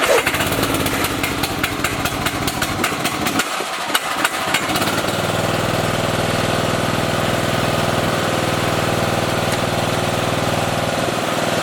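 Riding lawn mower's Briggs & Stratton engine running, with a rapid clatter of sharp knocks through the first few seconds before it settles into a steady, even run.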